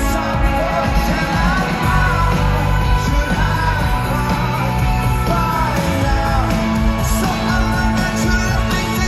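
Rock band playing live with a lead singer's voice over the full band.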